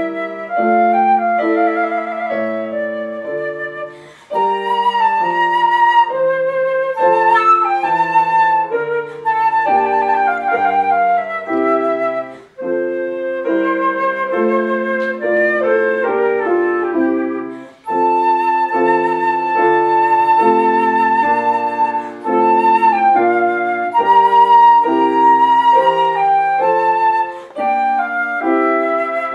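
Concert flute playing a melody with vibrato, accompanied by a Petrof grand piano, with short breaks between phrases.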